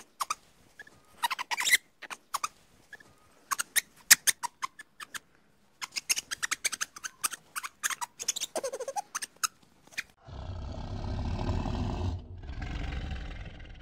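Ring-tailed lemur giving runs of short, sharp clicks and squeaks, followed about ten seconds in by two long, low big-cat growls, the second after a brief pause.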